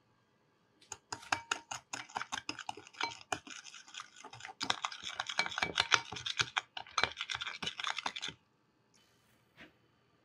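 Metal spoon stirring ketchup and sugar in a glass bowl: a quick, uneven run of scraping and clinking against the glass for about seven seconds, then it stops.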